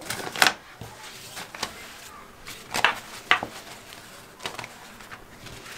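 Thin sheet of yufka pastry dough rustling and crinkling as it is lifted, unfolded and spread out on a wooden table, with a few light taps and scrapes against the tabletop.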